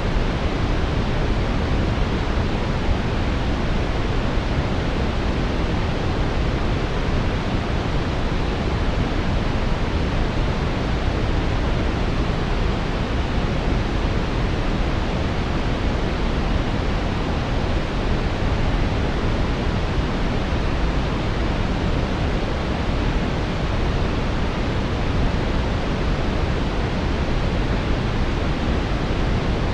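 Steady brown noise: an even, deep rushing hiss with most of its weight in the low end, unchanging throughout.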